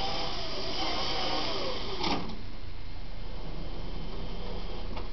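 Riding lawn tractor converted to electric drive with a 500-watt motor, whining as it drives, the whine rising and falling in pitch over a steady low hum. A sharp click about two seconds in, after which the whine thins out to a fainter steady tone.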